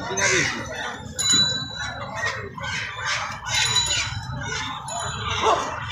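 Live chickens clucking and squawking in short, irregular calls.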